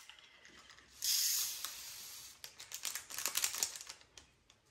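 Plastic packet of diamond painting drills crinkling and rustling, then a quick run of small plastic clicks and rattles from the drills and tiny clear storage containers being handled.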